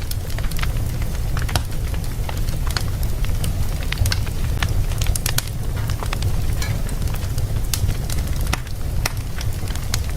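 Wood fire burning in a fireplace: a steady low rumble with frequent irregular sharp crackles and pops.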